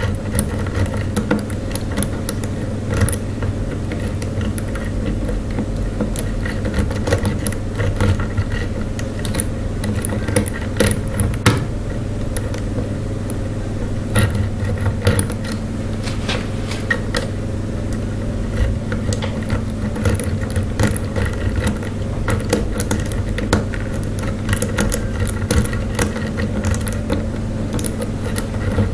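Lock pick and tension wrench working inside a brass ERA padlock: scattered small clicks and scrapes of the pick on the pins, over a steady low hum.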